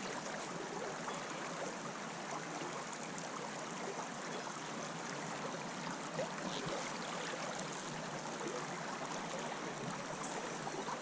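Steady rush of shallow creek water running past, an even hiss with no distinct events.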